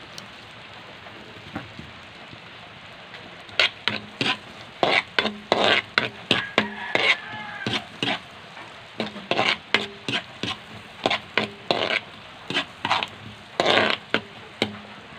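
Garlic and onion frying in butter in a wok, with a steady sizzle. From about three and a half seconds in, a utensil scrapes and clacks against the wok in quick repeated strokes as they are stirred.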